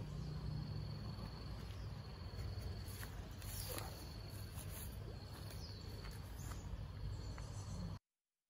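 Outdoor ambience: an insect's steady high trill over a low, even rumble. It cuts off abruptly just before the end.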